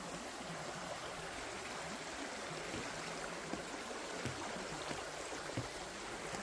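Creek water running steadily over its bed, a continuous even rush, with a few faint knocks now and then.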